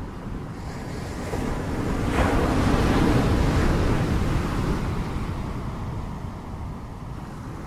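Ocean surf: a wave builds, breaks about two seconds in and washes out over the next few seconds, with a steady wind rumble underneath.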